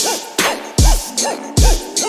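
Background music with a steady beat of deep, booming kick drums.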